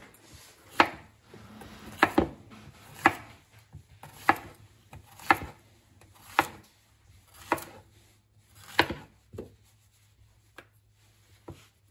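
Chef's knife slicing a yellow squash into rounds, each cut ending in a sharp knock on the cutting board, about one a second. The last few cuts near the end are lighter.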